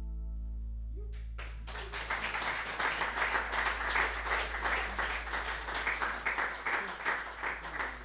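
The last chord of an acoustic bluegrass band's plucked strings rings out and dies away, then audience applause breaks out about two seconds in and continues as steady clapping.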